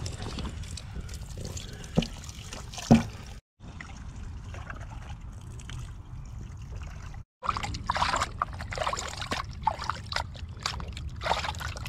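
Water trickling from a water cooler's spout onto raw meat slices in a plastic bowl, with two sharp knocks about two and three seconds in. Later, hands squish and slosh the meat about in the water in irregular bursts.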